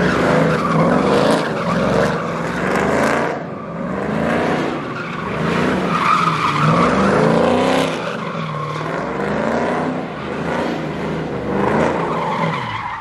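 Ram pickup truck doing donuts. Its engine revs hard, rising and falling again and again, over the squeal of spinning tyres.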